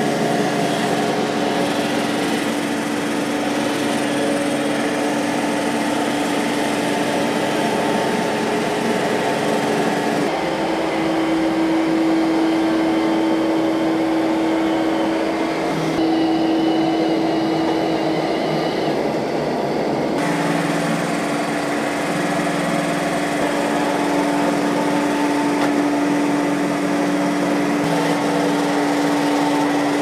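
iRobot Roomba Combo j5+ and Eureka E10s robot vacuums running as they vacuum carpet and tile floor: a steady whirring hum of fan and brush motors. The hum shifts slightly in pitch about a third of the way in and again about two-thirds of the way in.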